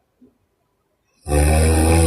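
A sleeping woman snoring: after about a second of near silence, a loud, low-pitched snore begins and carries on through the end.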